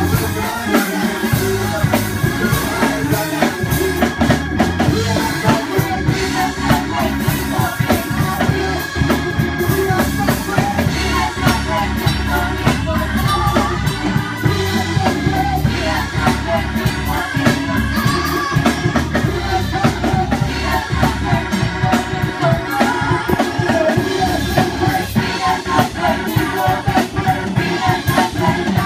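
Live gospel praise-and-worship band playing a song, with a drum kit and bass driving a steady beat and singing over it.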